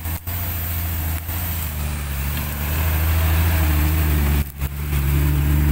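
Off-road 4x4's engine running steadily at low revs as it crawls through brush. It grows louder about halfway through as the vehicle comes close.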